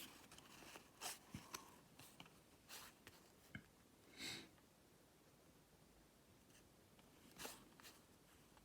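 Near silence broken by a few faint clicks and soft rustles of game cards being handled, with a slightly longer rustle about four seconds in.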